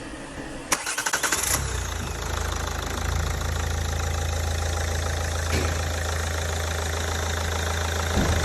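Ford Focus engine cranked by the starter for under a second and catching. It then idles steadily.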